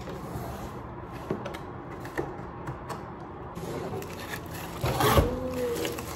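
Packaging being handled while a blender is unboxed: scattered clicks and scrapes of box and packing material, with a louder rustle and a short squeak about five seconds in.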